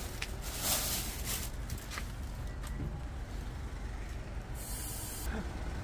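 Black plastic bag rustling and crackling as it is handled and set on a wooden shelf, under a steady low rumble of nearby traffic. About four and a half seconds in there is a short, high hiss lasting under a second.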